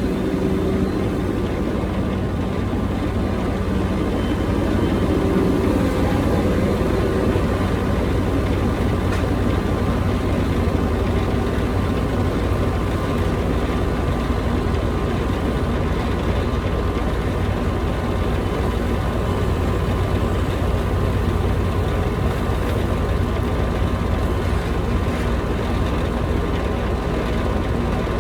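Heavy machine engine running steadily under work, with a constant low rumble and an even drone.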